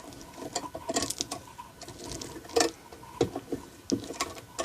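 Small metallic clicks and rattles of a Mul-T-Lock Classic cam lock and its key being handled as the key is worked into the keyway, with one sharper click about two and a half seconds in.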